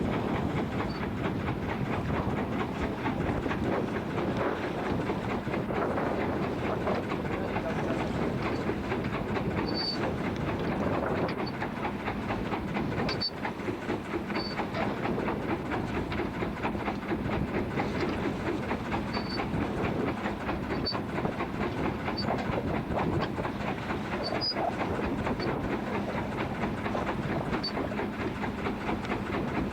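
Small fishing boat's engine running steadily under way, a dense rumble with a fast, even pulsing.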